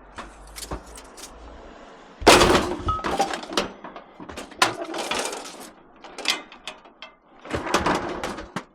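Scrap items being loaded and stacked into a van: a run of clanks, knocks and rattles, with one heavy bang about two seconds in.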